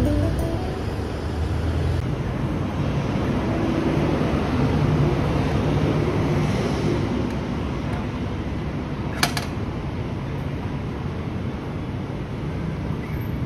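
Fresh orange juice vending machine running its squeezing mechanism: a steady mechanical noise with a low hum, over steady background noise. A single sharp click comes about nine seconds in.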